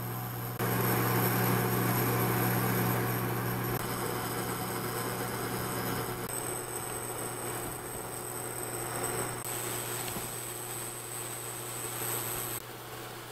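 Duxtop induction cooktop humming steadily with its cooling fan running, under a hiss of onions frying in the pan on it. The sound jumps in level at several cuts.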